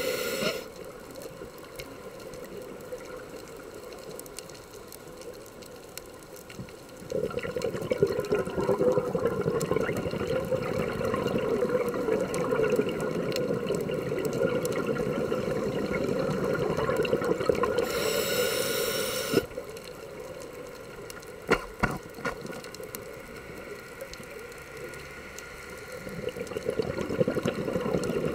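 Scuba regulator breathing heard underwater: a short hiss of breath drawn in at the start and again about two-thirds through, with a long stretch of bubbling exhaust rushing out in between and again near the end.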